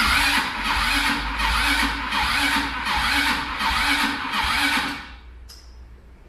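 An ATV's electric starter cranks the engine over in even pulses, about two a second, for roughly five seconds. The engine does not catch and the cranking stops suddenly. It is turning on a nearly dead battery that is hooked to a charger.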